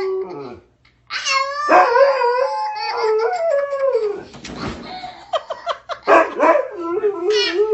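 A dog howling in long, wavering, pitched notes, broken by a short pause about a second in and a choppier stretch in the middle before the howl resumes.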